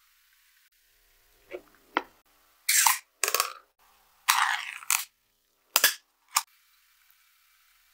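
Ring-pull can of tuna being opened by hand: two small clicks as the tab is lifted, then three short tearing, scraping bursts as the metal lid is peeled back, then two sharp clicks near the end.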